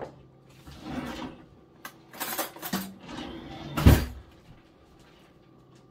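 Kitchen handling noises: bursts of rustling and scraping with a few clicks, then a heavy thump just before four seconds as a fork is pushed into a ceramic salad bowl.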